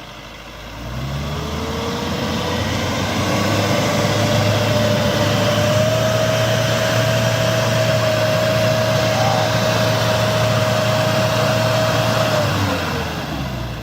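A vehicle's engine revs up about a second in and holds at high revs with a steady whine for about ten seconds, then drops back near the end. This fits the vehicle straining to get up a muddy, slippery road.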